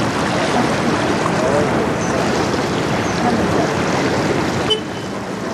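Wind and waves at a rocky shoreline make a steady rushing noise, with faint voices of people talking. The noise drops abruptly near the end.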